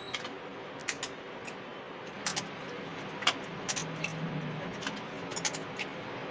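Eggs being cracked open by hand and emptied into a stainless-steel mixer jar: scattered sharp clicks and shell cracks, about a dozen spread irregularly over a faint steady hiss.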